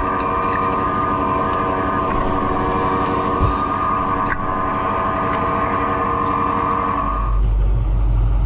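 Farm tractor running with a steady high whine over the engine. The whine cuts off about seven seconds in, leaving a heavier low engine rumble.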